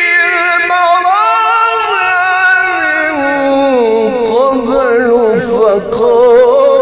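A man's voice reciting the Quran in the melodic mujawwad style: one long ornamented phrase, wavering and turning on held notes, that slides lower in pitch from about three seconds in.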